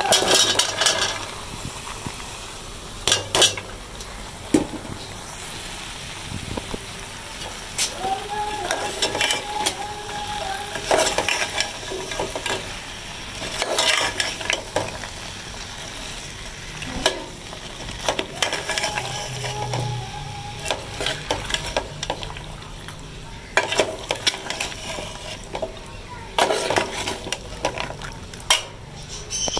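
Potatoes and sem beans are tipped into hot frying masala, which sizzles. A metal spatula then scrapes and clacks against the metal pot, again and again, as the vegetables are stirred in.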